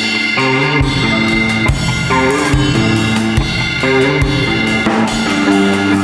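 Rock band instrumental intro: a full drum kit playing a steady beat of kick and snare under guitar and bass.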